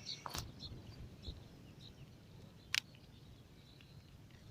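Quiet outdoor ambience with a few faint, short high-pitched sounds and one sharp click a little before three seconds in.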